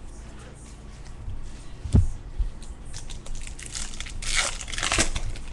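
A baseball card pack's foil wrapper being torn open and crinkled, after a single thump about two seconds in.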